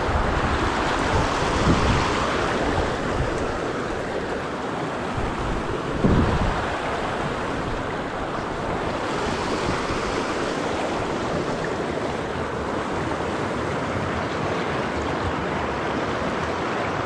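Steady rush of a rocky river's rapids and riffles running over stones, with two brief low thumps, the louder about six seconds in.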